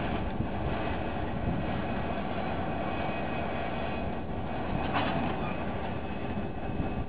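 Two diesel locomotives working in tandem at the head of a freight train, a steady engine drone as they pull it slowly along. A brief sharper sound cuts through about five seconds in.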